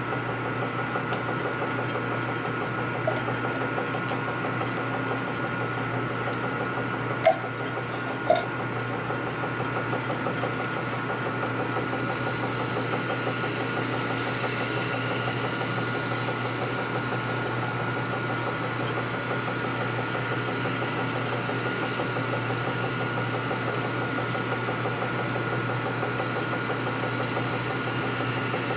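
Machine tool running steadily, spinning a workpiece while an abrasive stone is held against it to true it straight and round. Two sharp clicks come about seven and eight seconds in.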